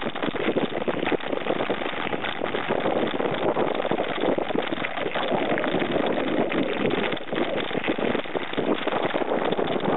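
Mountain bike riding over a dirt and gravel path, heard from a handlebar-mounted camera: a continuous rattle and crunch of tyres and frame over the rough ground, full of rapid small clicks.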